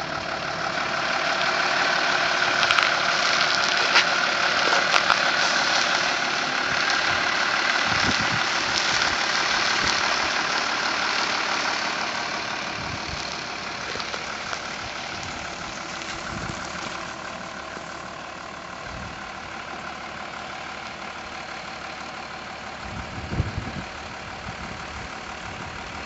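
Iveco lorry's diesel engine running at low revs while it reverses slowly, loudest in the first few seconds and growing fainter as the truck pulls away. There are a few sharp clicks a few seconds in and a brief low thump near the end.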